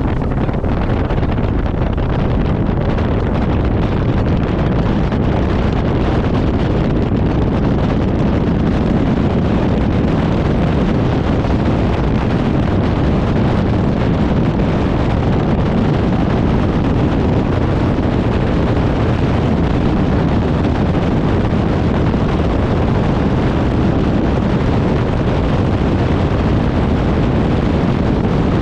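Wind buffeting the microphone over a bass boat running at speed, its outboard motor and the hull on the water underneath; the noise stays loud and steady throughout.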